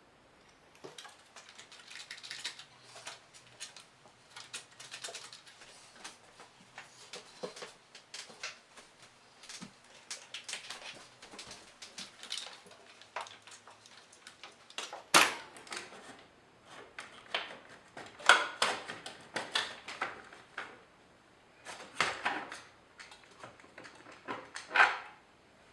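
Irregular clicks, taps and scraping of plastic and metal parts handled inside an opened workstation case, with a sharp click about halfway through and louder bouts of clatter after it.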